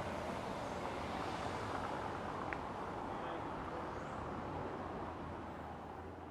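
Steady street ambience with a hum of distant traffic, fading out near the end.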